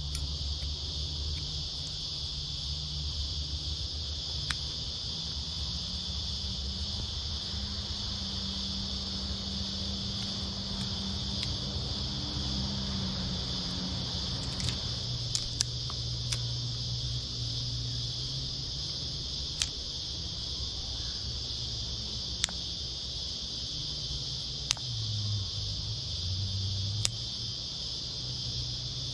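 Steady, high-pitched insect chorus in the bush. Underneath runs a low hum that shifts in pitch, and a few sharp clicks come here and there.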